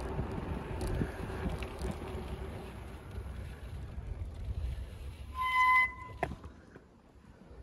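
Wind rushing over the microphone of a moving bicycle, dying away as the bike slows to a stop about six seconds in. About five and a half seconds in a short, steady high beep sounds, the loudest thing here, followed by a single click.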